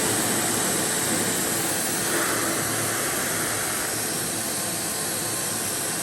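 Professional hair dryer running, a steady rush of blown air over its motor, growing slightly quieter through the second half.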